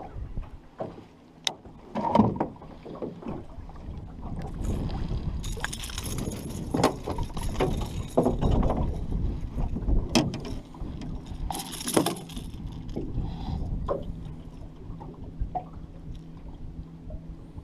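Irregular knocks and rustling in a small aluminum fishing boat while a small northern pike is landed and handled, over a steady low rumble.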